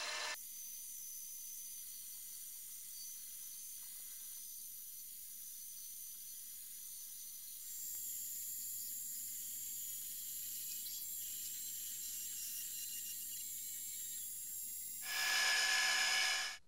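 Small metal lathe running while a twist drill in the tailstock chuck bores through the centre of a spinning metal pivot pin: a steady high hiss and whine. It steps up in level about halfway through and gets louder for a moment near the end.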